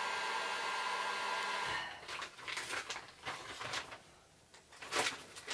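Handheld electric hot-air gun running with a steady whine while shrinking heat-shrink tubing onto an antenna rod, switched off a little under two seconds in. After it stops come a few light clicks and rustles as the rod is handled.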